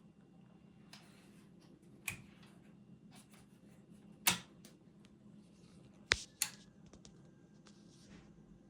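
Revox B77 MK2 reel-to-reel tape recorder's motor buzzing steadily at idle, a low hum from motor vibration that is the fault at issue. A few sharp clicks cut through it, the loudest about four seconds in and two close together about six seconds in.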